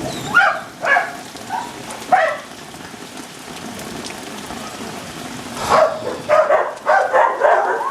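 Dogs barking in short separate barks, then a quick run of barks near the end, over the steady hiss of heavy rain during a thunderstorm.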